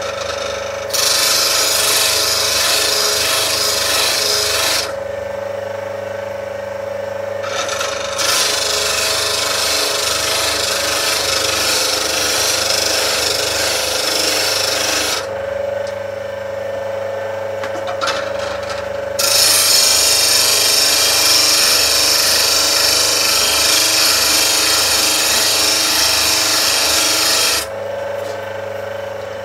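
Axminster slow-speed bench grinder running with a steady hum while a skew chisel in a jig is ground against its wheel. Three long passes of gritty grinding hiss, lasting about 4, 7 and 8 seconds, with only the motor's hum between them.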